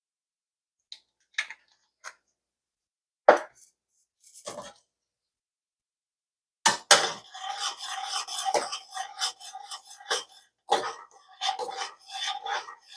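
A few light clicks and a sharp knock as a glass spice jar is set down on the counter, then, from about seven seconds in, a spoon stirring and scraping around a stainless steel saucepan of thick oatmeal.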